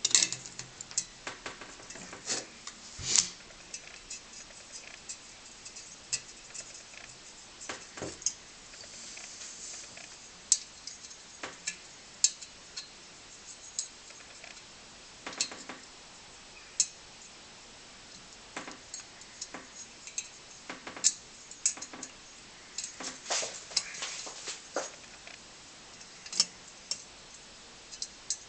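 Small metal parts of a brass blowtorch clicking, tapping and clinking at irregular intervals as they are handled and fitted back together, with a short stretch of rubbing about nine seconds in.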